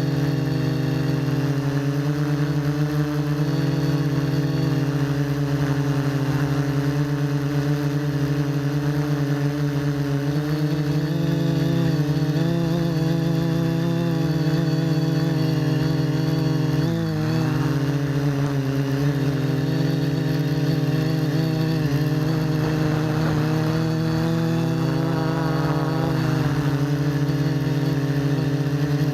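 RC quadcopter's electric motors and propellers buzzing steadily in flight, the pitch wavering with the throttle and dipping sharply for a moment about halfway through.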